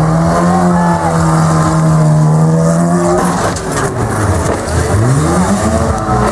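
Car engine held at high revs for about three seconds, then a crash and scrape as the stunt car tips off a ramp and rolls onto its roof. An engine revs up again near the end.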